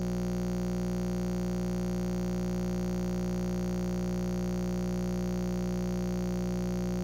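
Steady electronic buzz made of many fixed tones with no change at all. It starts and stops abruptly, cutting off just after the end, typical of a recording glitch in which a stuck audio buffer loops.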